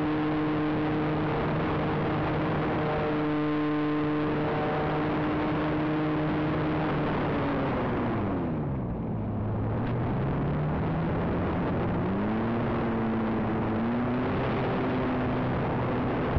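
Electric motor and propeller of a Calmato RC model plane, heard from the onboard camera: a steady hiss of airflow and propeller with a pitched motor drone running through it. About eight seconds in, the drone and hiss drop sharply in pitch and level as the motor slows, then climb back up over the next few seconds as it speeds up again.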